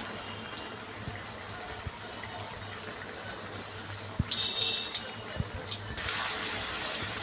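Batter-coated bajji chillies deep-frying in hot oil: a steady sizzle and bubbling. It grows louder and crackles densely for about two seconds past the middle, as a second battered chilli is lowered into the oil.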